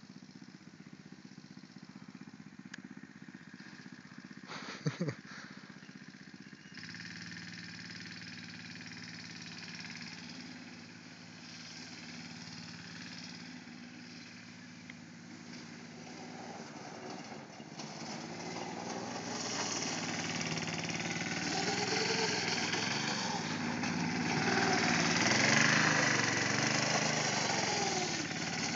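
Go-kart's small engine running as the kart drives the dirt track, its pitch rising and falling with the throttle and growing louder as it comes close near the end. A short loud sound about five seconds in.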